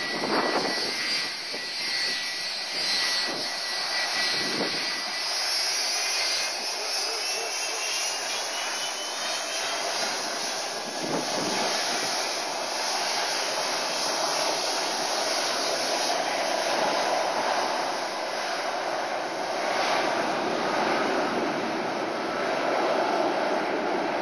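Boeing 757-200 jet engines running at low power as the airliner taxis, a steady jet noise with a high whine in the first several seconds that gives way to a broader rushing noise about halfway through.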